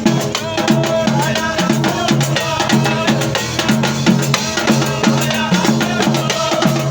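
Background music with a steady drum-kit beat, a bass line and a melody.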